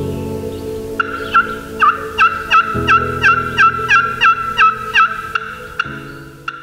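A run of more than a dozen wild turkey yelps, about three a second, starting about a second in and stopping near the end, over soft sustained background music chords.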